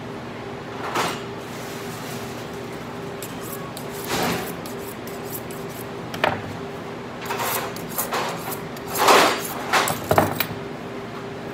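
Butcher's knife being honed on a sharpening steel: single metallic scraping swipes at first, then a quick run of strokes in the last few seconds. A steady hum sounds underneath.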